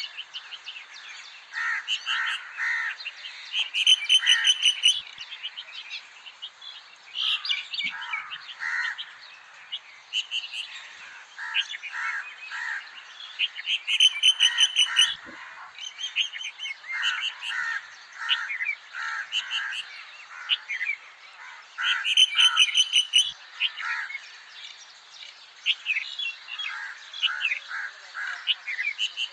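Several birds chirping and calling over one another in quick, short notes. A louder trilled phrase comes back about every nine seconds.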